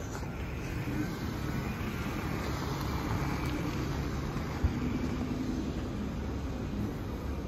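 Police Dodge Charger patrol car driving past and pulling away across an asphalt lot, its engine running with tyre noise that swells as it passes. A single short thump about four and a half seconds in.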